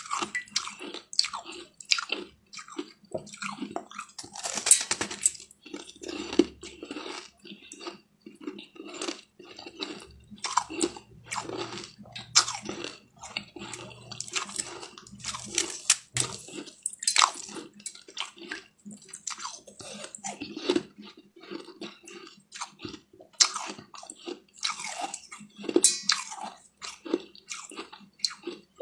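A chunk of ice being bitten and chewed: many irregular sharp crunches and cracks one after another.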